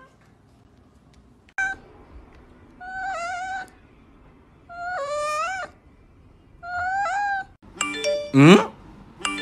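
A domestic cat meowing three times, short calls of under a second each, each rising slightly at its end. Near the end a chiming jingle starts, with a loud swooping sound over it.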